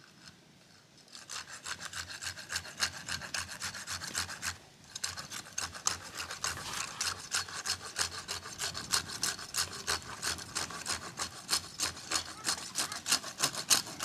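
Hand saw cutting through firewood: quick, even back-and-forth rasping strokes, starting about a second in, with a short pause about four and a half seconds in.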